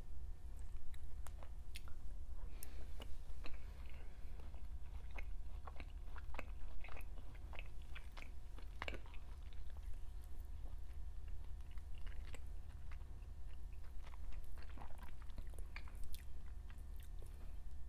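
A person chewing mouthfuls of sirloin steak and onions close to a clip-on microphone, with irregular wet mouth clicks and smacks, over a steady low hum.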